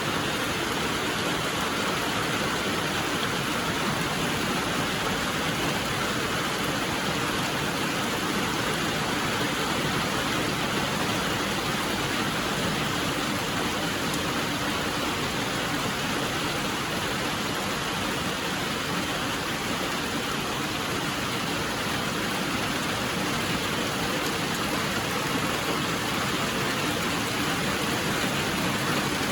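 Steady rainfall: an even, continuous hiss of rain with no distinct drops or changes.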